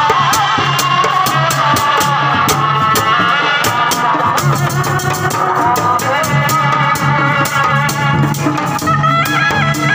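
Sundanese kuda renggong procession music: a high, wavering melody over a steady drum beat and a fast, regular rattle.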